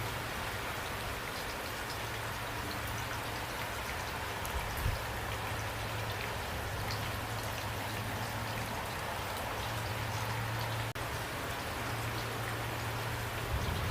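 Steady rainfall, with individual drops heard as scattered sharp ticks over an even hiss and a low rumble underneath; the sound briefly cuts out about eleven seconds in.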